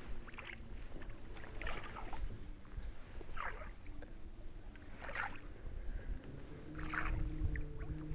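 Water swishing against the boat's side about every second and a half, from a muskie lure being swept through the water in a figure-eight to draw a following fish into striking.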